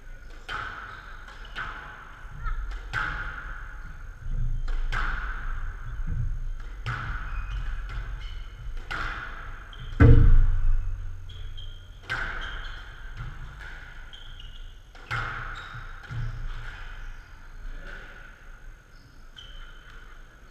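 Squash rally on a glass court: the ball is struck by rackets and cracks off the front and side walls with a sharp knock about once a second, with short squeaks of shoes on the court floor. About ten seconds in comes one much louder, heavy thud against the court wall.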